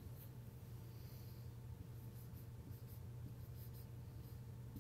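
Dry-erase marker writing a word on a whiteboard: faint, short scratchy strokes over a steady low room hum.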